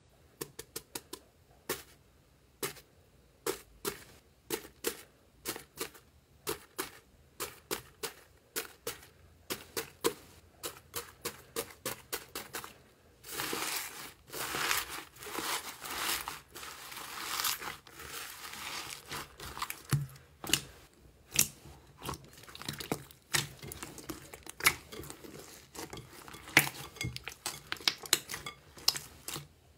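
Crunchy foam-bead slime pressed and kneaded by hand: a quick run of crisp crackles and pops, with a denser stretch of crunching about halfway through.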